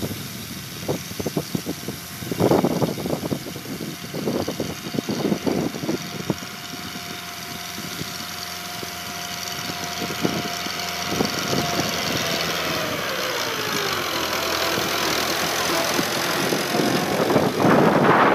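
Fiat 640 tractor's diesel engine running under load as it pulls a cultivator, growing louder as it approaches; its steady note drops in pitch about two-thirds of the way through. Wind buffets the microphone at times, most in the first half and near the end.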